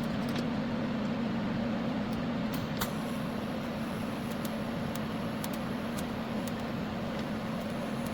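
TIG welding on the snowblower's cracked steel: a steady hum from the TIG welding machine, with a faint high-pitched whine from about three seconds in and a few scattered small ticks.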